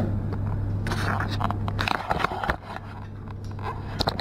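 Rustling, scraping and clicking from handling clothing and gear as someone moves about in a small room, over a steady low hum that weakens about halfway through.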